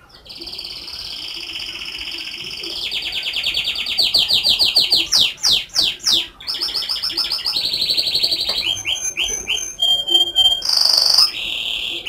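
Domestic canary singing a long, loud song made of rapid trills, each held at one pitch for a second or two before switching to the next. A few quick sweeping notes come near the middle, and short repeated notes and a sharp high note come near the end.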